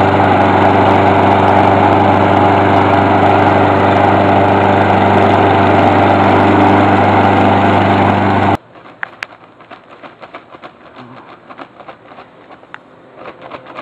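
John Deere walk-behind gasoline lawn mower running steadily while being pushed through grass, then cutting off suddenly about two-thirds of the way through. After it, only faint rustling and scattered clicks remain.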